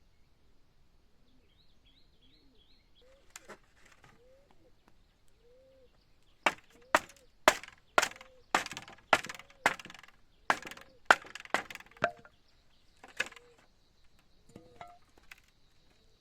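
A run of about a dozen sharp chopping blows, roughly two a second, with a few lighter ones before and after. A bird calls repeatedly in short notes throughout.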